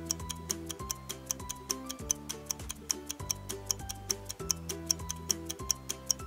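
Countdown timer music: a light tune with short bass and melody notes over a steady fast ticking, about four to five ticks a second, marking the time to answer.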